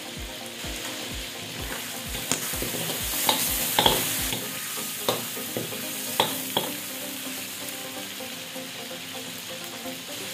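Chicken livers sizzling in hot oil in a metal wok, with a metal spatula scraping and knocking against the wok as they are stirred, several sharp scrapes falling between about two and seven seconds in.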